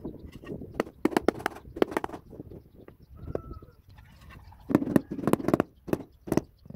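Mallet tapping ceramic floor tiles down into fresh mortar: quick series of knocks in two bursts, one about a second in and a louder one near the end.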